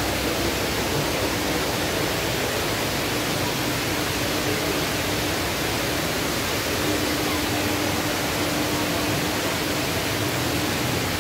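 Tall indoor waterfall, sheets of water running down a multi-storey wall, making a steady, even rushing hiss.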